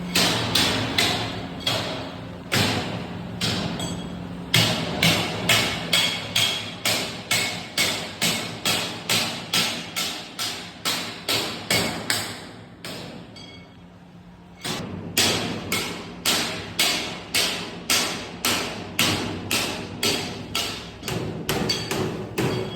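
Hammer blows on galvanized sheet-metal ducting, struck steadily about twice a second, with a short pause about thirteen seconds in before the hammering resumes.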